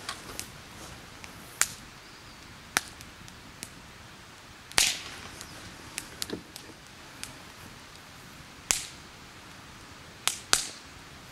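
Burning torches crackling: a dozen or so sharp, irregular pops and cracks, some in quick pairs, over a faint steady hiss.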